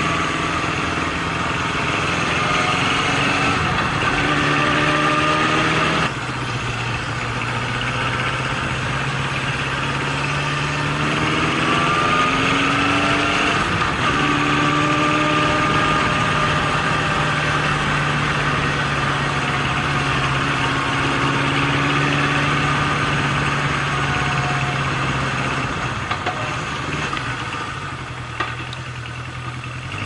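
Honda CB750 inline-four engine running under way, heard from on the bike, its pitch rising and falling with the throttle. It drops back suddenly about six seconds in, and goes quieter near the end as the bike slows.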